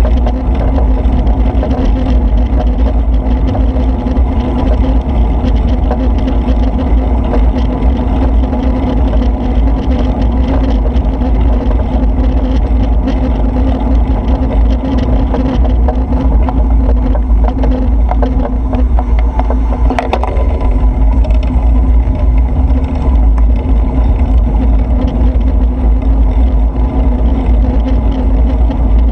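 Steady motor hum from the vehicle carrying the camera, with a heavy low rumble of wind and road noise on the microphone. A single sharp click about twenty seconds in.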